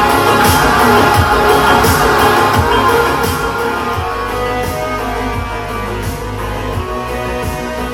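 Rock music with guitar and a regular drum beat played through a JBL Xtreme 3 portable Bluetooth speaker, at about 65–70% volume.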